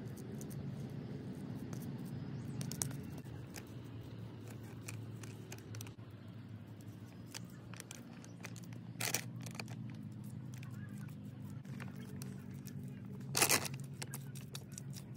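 Hands pressing, patting and smoothing damp clay soil, with small scrapes and crumbling crunches and two louder pats, one about nine seconds in and one near the end. A steady low hum runs underneath.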